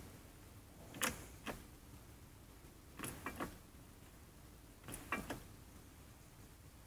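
Shop press pressing the pulley onto a flathead V8 water pump shaft: faint clicks and creaks in three short clusters about two seconds apart.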